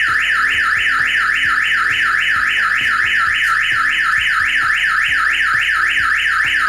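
StarLine car alarm siren sounding in alarm mode, a rapidly repeating sweeping wail of about four to five cycles a second. The alarm has triggered because it found no tag key fob after the car was disarmed with the factory key, and the engine is blocked.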